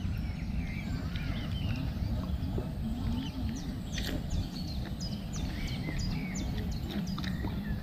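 Birds chirping with many short, quick notes that rise and fall, scattered throughout, over a steady low rumble.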